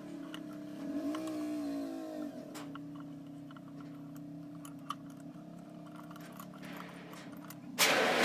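A steady motor hum that wavers briefly up and back in pitch about a second in, with scattered light clicks and taps, then a sudden loud rushing hiss near the end.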